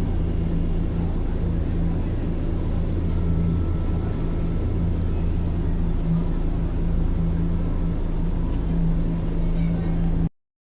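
Steady low hum of a running vehicle with a constant droning tone, cutting off abruptly near the end.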